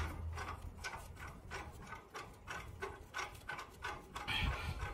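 Handwheel of an old isolation valve on a hot-water heating pipe being turned shut by hand, giving faint, irregular ticks and creaks from the handle and stem, with a slightly louder rustle near the end.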